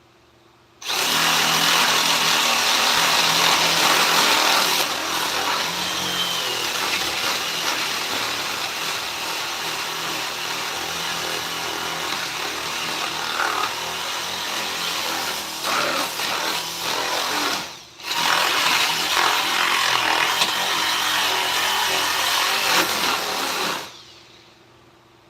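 A handheld electric power tool running against wood. It starts about a second in, cuts out briefly and restarts about three quarters of the way through, and switches off near the end.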